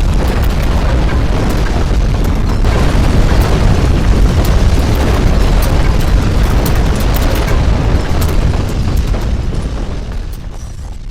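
Earthquake shaking: a loud, deep rumble with crackling and rattling over it, dying away over the last second or so.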